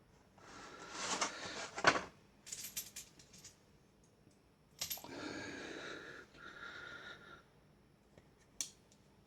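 Hands placing metal Zippo lighters and coins into a display tray: rustling handling noise with sharp clicks and small metal clinks, coming in short spells.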